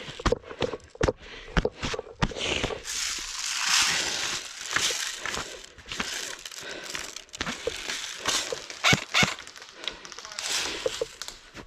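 Crunching and rustling of movement through snow and brush, with many irregular snaps and clicks and louder stretches of rustling.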